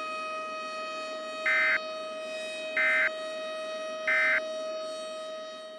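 Three short, identical bursts of Emergency Alert System end-of-message data tones, about 1.3 seconds apart, closing the tornado warning broadcast. Under them runs a steady buzzing tone that begins to fade out near the end.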